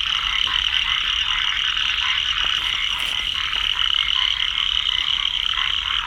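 Rain frogs calling in a steady chorus of rapid, unbroken trilling croaks.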